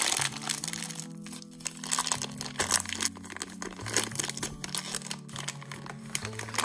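Clear plastic wrapper of a Moon Dough brick crinkling and tearing as hands squeeze it and pull it open, with background music playing.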